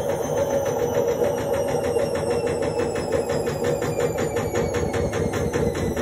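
Indesit front-loading washing machine running a spin, its drum making a fast, even rhythmic beat over a dense rumble, while the motor's whine falls slowly in pitch as the spin winds down.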